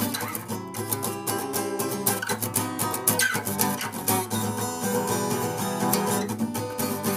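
Acoustic guitar strummed fast in a driving gallop strumming pattern, with many quick, even strokes over held chords.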